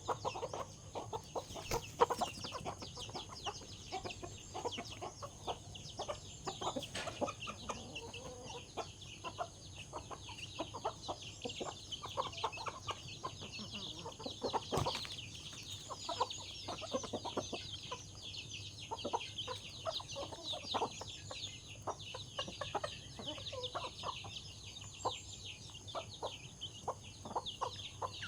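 A flock of chickens clucking and calling while they crowd and scramble over food, with a steady chatter of quick high chirps and scattered sharp taps.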